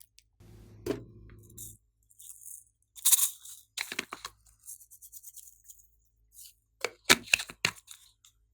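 Hand-played glossy slime, squished and stretched, giving clusters of crackling, popping clicks about three seconds in and again about seven seconds in.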